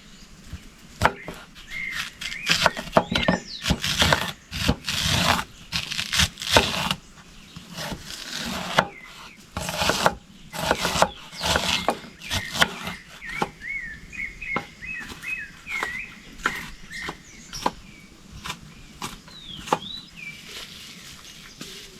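Irregular knocks and scrapes from hands-on work, busiest in the first half, with small birds chirping over them.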